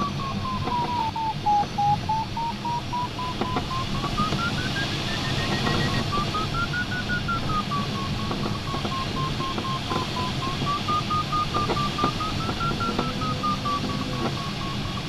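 A glider's audio variometer beeping a tone that slides smoothly up and down in pitch as the climb rate rises and falls, over the steady rush of air around a JS1 sailplane's cockpit. A few faint clicks sound now and then.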